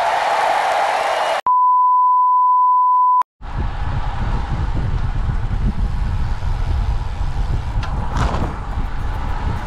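A hiss that cuts off, then a single steady electronic beep lasting nearly two seconds, an edited-in censor-style bleep; after it, a steady low rumble of wind on the microphone while riding.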